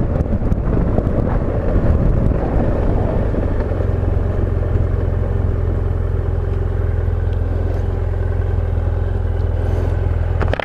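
Adventure motorcycle engine running at low revs as the bike creeps along a dirt track to the edge of the crop. The engine settles into a steady low hum in the second half as the bike comes to a near stop.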